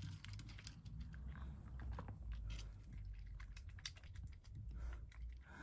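A cat eating dry kibble from a wooden dish, chewing with soft, irregular small crunches.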